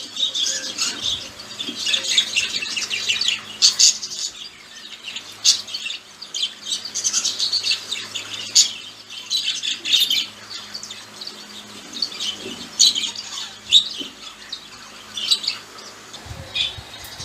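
Two budgerigars chattering: a continuous stream of quick, high warbling chirps, broken every second or so by sharper, louder calls.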